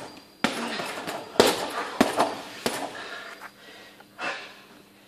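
Gloved punches landing on a heavy punching bag: four hard thuds in under three seconds, with lighter hits between them.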